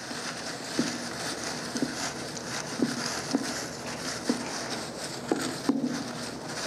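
Paper slips rustling and shuffling as a hand stirs them inside a clear acrylic draw box, with a few light, irregularly spaced knocks.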